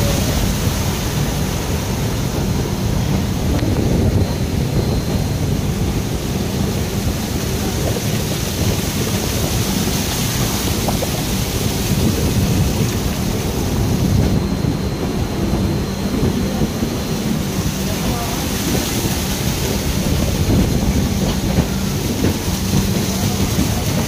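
Heavy rain rushing steadily over a continuous deep rumble from a slowly moving train.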